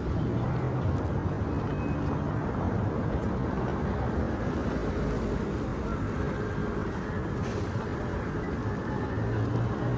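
Road traffic: vehicle engines running and passing in slow, congested traffic, a steady low rumble.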